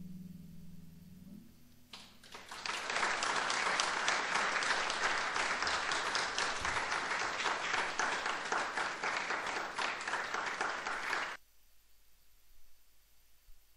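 A harp's last notes dying away, then an audience applauding for about nine seconds; the applause cuts off abruptly near the end.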